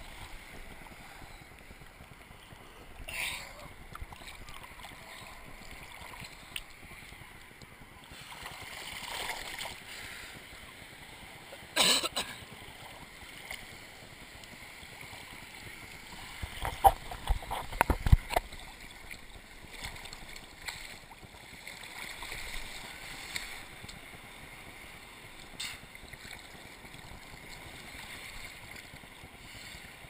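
Ocean surf sloshing and splashing around a camera held at the water's surface, with a loud splash about twelve seconds in and a burst of splashes a few seconds later as waves wash over it.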